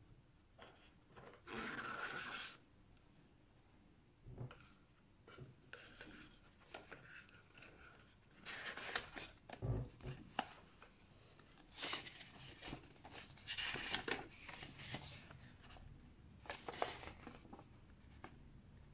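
Unboxing handling noise: cardboard box and foam insert scraping and sliding, then a paper card and folded instruction leaflet rustling as they are pulled out and unfolded, in scattered short, soft bursts.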